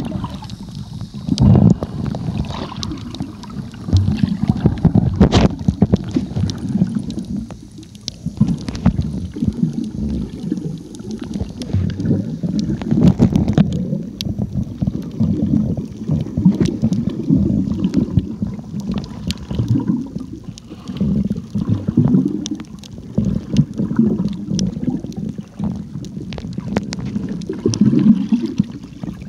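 Muffled sound of water from a camera held underwater while snorkeling: a low churning rumble that swells and fades unevenly, with scattered clicks and knocks against the housing.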